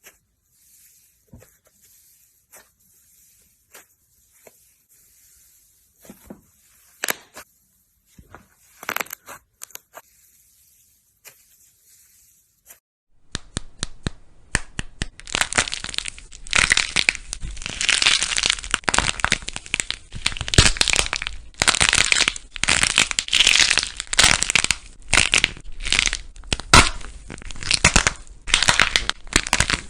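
Slime being pressed and squeezed by hand: scattered soft pops and clicks at first, then about 13 seconds in a much louder, dense, continuous crunching and crackling.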